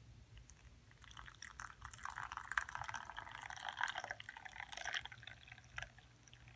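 Hot water poured from a kettle into a porcelain cup of instant coffee powder, splashing and filling. It starts about a second in and grows weaker near the end as the stream thins.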